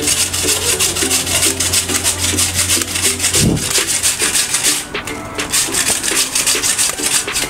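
Raw potato grated on a flat steel hand grater: quick, even rasping strokes, with a short break about five seconds in before the strokes resume.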